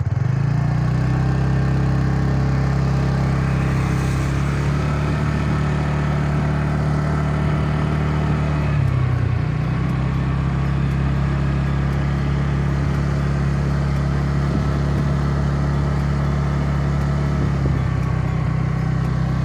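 Motor scooter engine running steadily at cruising speed, heard from the rider's seat with wind noise on the microphone; the engine note dips briefly about nine seconds in.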